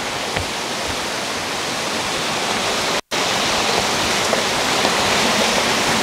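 Steady rush of a mountain waterfall and its stream. It cuts out for an instant about halfway through.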